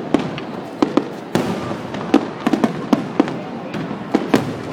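Fireworks going off: a rapid, irregular series of sharp bangs and crackling pops, about a dozen in under five seconds, over a continuous crackling wash.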